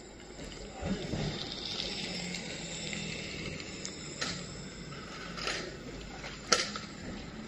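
Footsteps on dirt and the rustling and crackling of plastic rubbish as someone steps up and crouches, with a few sharp crackles, the loudest about two-thirds of the way in, over a faint low hum.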